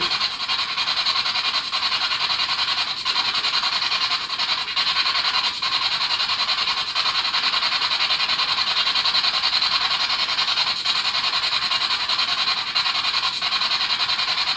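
Spirit box radio scanner sweeping through stations, giving a steady loud hiss of static from its small speaker, broken by brief dropouts every second or so as it jumps between frequencies.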